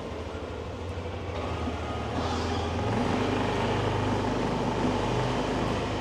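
Motorbike engine running in street traffic, growing louder and rising in pitch about halfway through as it picks up speed.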